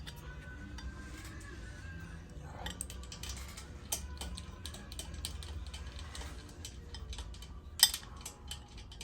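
Light metallic clicks and taps of hand tools and bolts being fitted to Harley-Davidson engine top-end parts, with one sharp, loud metal click near the end.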